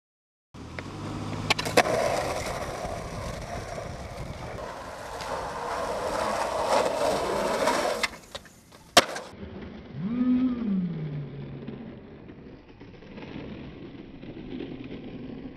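Skateboard wheels rolling on pavement with sharp clacks of the board, the loudest a single crack about nine seconds in. After that the rolling is quieter, and a short rising-then-falling call is heard about a second later.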